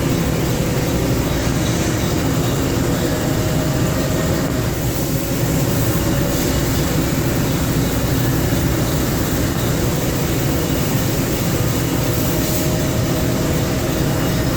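1988 Mori Seiki SL4 CNC lathe running and cutting a part: a steady machining noise with a low hum and faint steady whines that hold one pitch.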